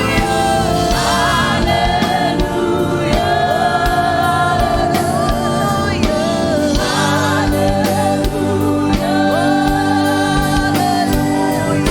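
Gospel praise-and-worship music: voices holding long sung notes with vibrato over a band with a steady beat and sustained low bass notes.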